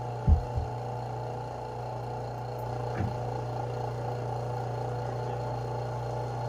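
The small pump of a suction-cup countertop seam setter runs with a steady hum. A couple of sharp knocks come in the first second and a lighter tap about three seconds in.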